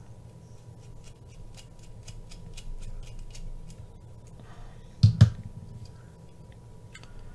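Multi-bit screwdriver turning a small screw into a folding knife's titanium handle scale, with faint small clicks of the bit and screw. About five seconds in come two sharp knocks close together as the screwdriver is set down on the wooden table.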